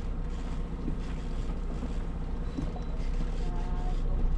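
Boat motor running steadily at trolling speed, a low even hum, with wind buffeting the microphone.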